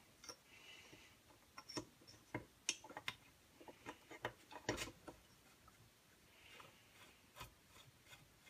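Faint, irregular small clicks and taps of metal hand tools and screws being handled on a Husqvarna 181 chainsaw's cylinder, with a few soft rubbing sounds; the clearest clicks come about two and a half and four and a half seconds in.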